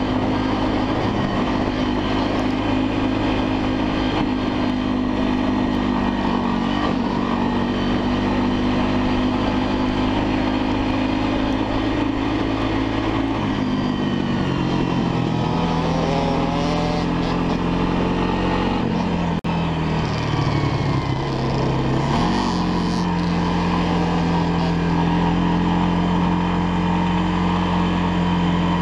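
Honda FourTrax ATV's single-cylinder four-stroke engine running steadily while riding. About halfway through its note drops as it eases off, dips lower still, then picks back up and holds steady near the end.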